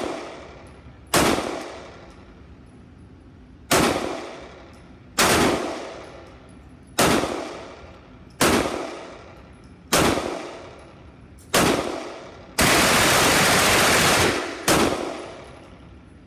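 9mm pistol firing single shots one to two seconds apart, each followed by the echo of an indoor range. About two-thirds of the way through, a burst of automatic weapon fire from elsewhere on the range runs for about two seconds, then the pistol fires one more shot.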